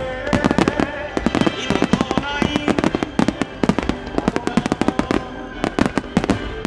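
Aerial firework shells bursting in quick succession, many sharp bangs a second. A song with a singing voice plays over the bangs.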